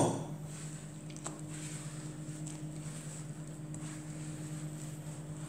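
Bread dough being mixed by hand in a glass bowl: faint wet squishing with a few light ticks, over a steady low hum. It opens on the fading tail of a louder sound.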